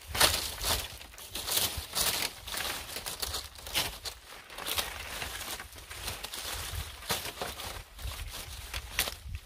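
Cut leafy branches and dry palm-leaf thatch rustling and crackling in irregular bursts as they are handled and spread out by hand.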